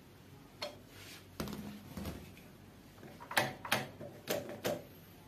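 Hands handling motorcycle handlebar controls and a newly mounted dimmer knob: a scatter of sharp clicks and light knocks, with four quick ones close together near the end.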